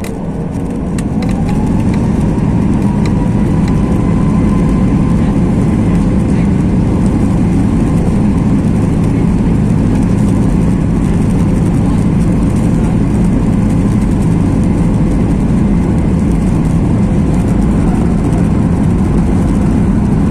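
Boeing 737 MAX 8's CFM LEAP-1B turbofan engines spooling up to take-off thrust, heard from inside the cabin. A whine rises over the first few seconds as the engine noise swells, then holds as a loud, steady rumble through the take-off roll.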